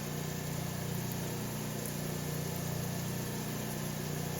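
Hi-Tech 10-inch lapidary slab saw running with a steady low hum.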